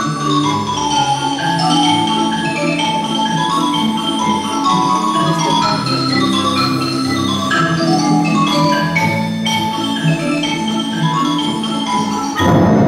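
Ballet orchestra music for strings and percussion: mallet percussion plays a quick line of short notes over held low string tones. A sudden louder full entry comes just before the end.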